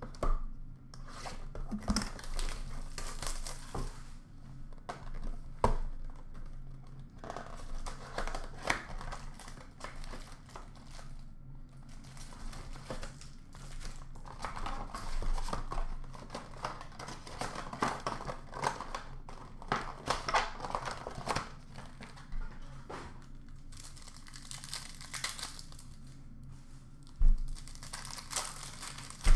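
Plastic packaging and foil card-pack wrappers of 2020 Panini Select football packs crinkling and tearing as the mega box is opened and packs are ripped, in bursts that come and go. A few knocks on the counter, the loudest near the end.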